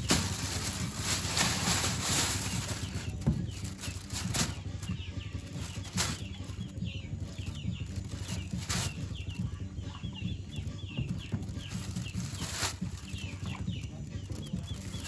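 A thin plastic bag crinkling and rustling as a bagged fish is set down on bags of ice in a cooler and pushed into place, with the busiest crackling in the first few seconds. Short high bird chirps repeat in the background from about a third of the way in.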